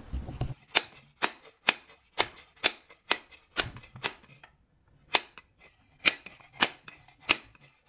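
About a dozen heavy hammer blows, roughly two a second with a short pause midway, driving the gear train out of a Somfy tubular motor's tube.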